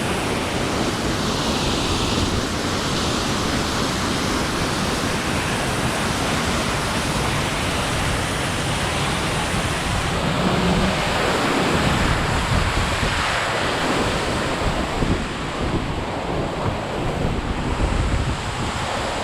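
Steady rushing of a waterfall and its river, with wind buffeting the microphone as a low, uneven rumble.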